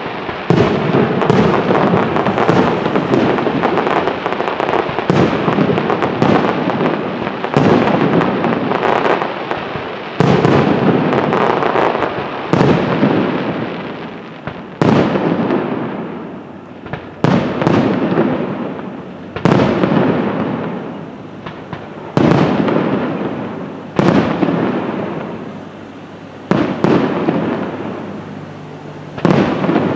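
A fireworks display of aerial shells bursting. The first half is a dense barrage of overlapping bangs. From about halfway through come single loud bangs roughly every two seconds, each trailing off in a fading rumble.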